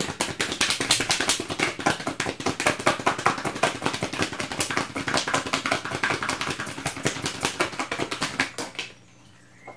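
A deck of tarot cards being shuffled by hand: a fast, dense run of card clicks and flicks that stops near the end.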